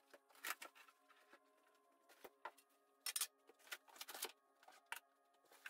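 Faint crinkling of plastic wrap and scraping of cardboard and foam packing, in short scattered bursts, as drill-press parts are lifted out of their shipping box.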